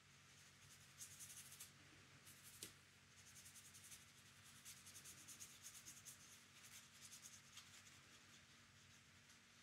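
Faint watercolour paintbrush strokes, the bristles scratching and brushing in short irregular strokes, with one small click about two and a half seconds in.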